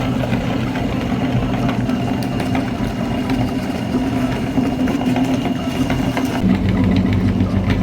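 Electric meat grinder's motor running steadily with a hum; its pitch drops a step near the end, and it cuts off suddenly.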